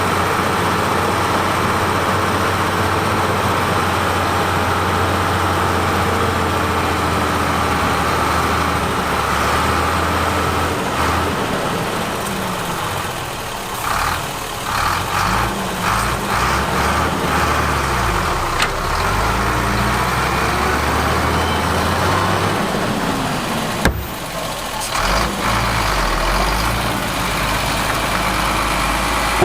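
Heavy diesel engine of a construction machine running steadily, then rising and falling in pitch again and again from about halfway through as it works under changing load. A single sharp knock comes near the end.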